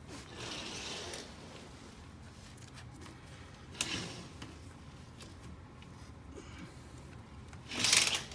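Curtains being pushed aside by hand, the fabric brushing and swishing in short bursts: a soft one about a second in, a sharper one around four seconds, and the loudest just before the end.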